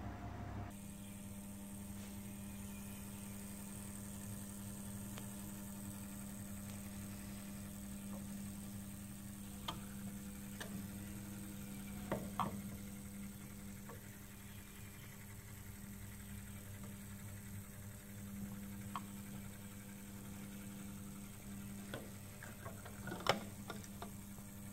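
Steady electrical hum from the running copper electroplating setup, with a few light clicks and knocks as the acrylic lid and electrode assembly are handled, the loudest about 23 seconds in.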